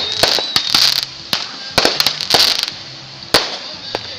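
Small fireworks going off: an irregular run of sharp cracks and pops mixed with bursts of hissing, thinning out after about three seconds.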